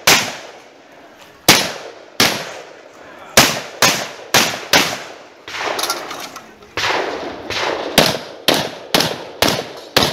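A Derya MK12 semi-automatic 12-gauge shotgun fires more than a dozen shots in quick, uneven strings during a competition stage. Each shot has an echoing tail.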